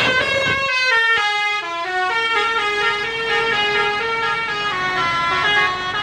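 Bus 'telolet' horn: a multi-tone musical air horn playing a quick tune of stepping notes, sounded by a bus as it passes close by.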